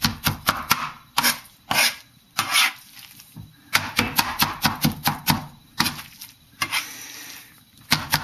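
Cleaver chopping through a soft mixture of ground pork, Chinese cabbage and egg on a cutting board, in quick bursts of sharp knocks. A couple of longer scraping sounds fall between the bursts.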